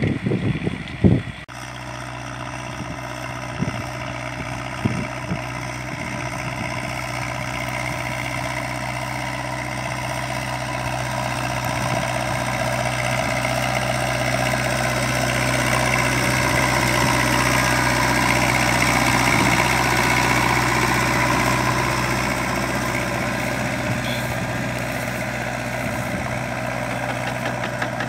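Zetor 6211 tractor's four-cylinder diesel engine running steadily while it pulls a spreader broadcasting lime. The engine grows louder as the tractor passes close, about two-thirds of the way through, then fades as it moves away. Wind buffets the microphone in the first second or so.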